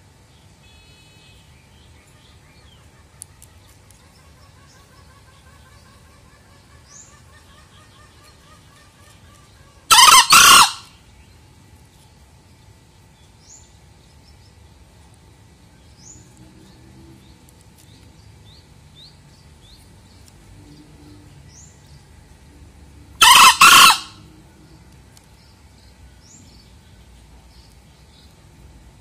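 Male green junglefowl crowing twice, about thirteen seconds apart, each crow short and in two parts. Small birds chirp faintly in the background.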